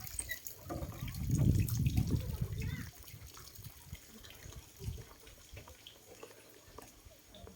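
Water trickling and dripping at a fish pond, with a low rumble for about two seconds near the start.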